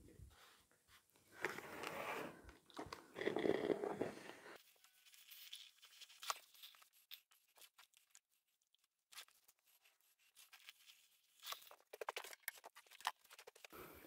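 Cotton fabric and a terry tea towel being handled and smoothed on a pressing surface, faint. Rustling and crinkling come in two bursts, with a few light clicks and taps in the quieter stretch between.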